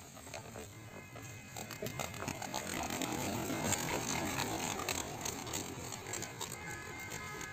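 Racing pigeons released from a crate and taking off together, a rapid flapping of many wings that builds to its loudest about three to four seconds in.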